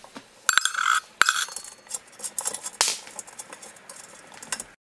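Small metal screws and nuts clicking and clinking against a metal snare drum shell as the drum's hardware is unscrewed by hand. There is a sharp clink about half a second in that rings briefly, another just over a second in, and lighter clicks and rattles after.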